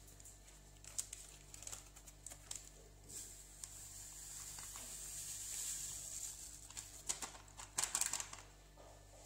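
Flan mix powder pouring from a paper sachet into a pan of milk: light crackles of the paper packet being handled, then a soft steady hiss of the powder streaming out from about three seconds in, and a cluster of sharp paper rustles near the end as the packet is shaken empty.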